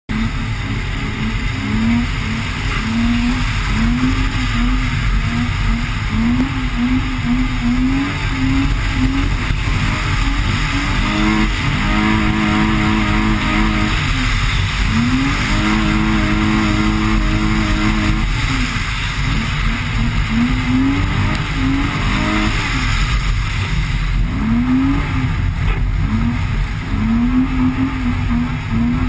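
BMW E30's engine revving up and down again and again as the car is driven hard on snow, the revs held high twice for about two seconds each near the middle. A steady rush of wind and tyre noise runs underneath.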